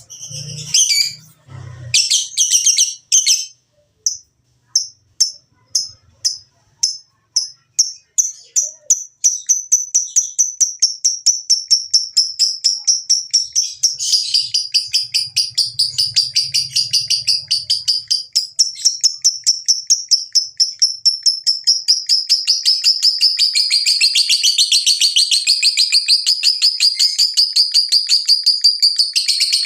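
Lovebird giving a long 'ngekek' chatter. Separate sharp chirps speed up and merge, about nine seconds in, into a fast, unbroken chattering trill that keeps going.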